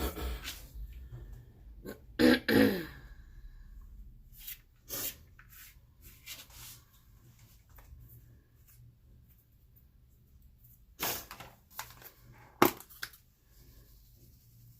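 A person coughs about two seconds in. Scattered light knocks and clicks of kitchen handling follow, with one sharp click near the end.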